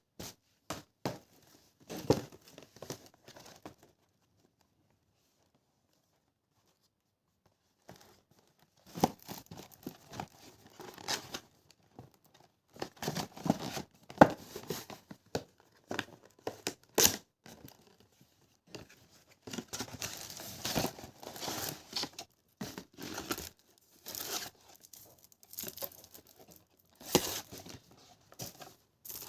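Candy and chocolate wrappers being torn open and crinkled in irregular bursts, with a few seconds of silence a few seconds in.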